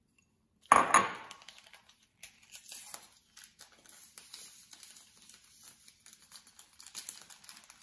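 A small paper sachet of vanilla sugar crinkling as it is torn open and handled, with a loud sudden crackle about a second in, followed by several seconds of quieter irregular rustling as the sugar is shaken out over a mound of flour.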